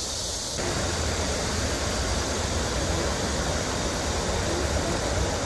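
River water rushing over a low weir: a steady wash of noise with a low rumble underneath, coming in about half a second in.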